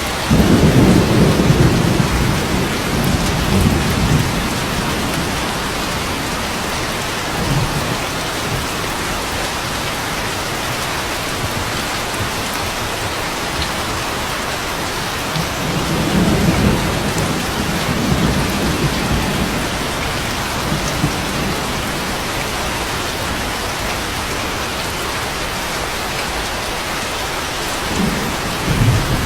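Steady rain with rolling thunder: a loud low rumble just after the start lasting about four seconds, another a little past halfway, and a short one near the end.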